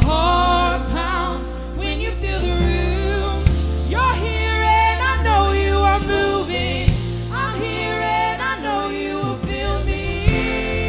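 Worship band playing a slow gospel-style song, with a voice singing long held notes over a steady bass. A sharp hit comes about every three and a half seconds.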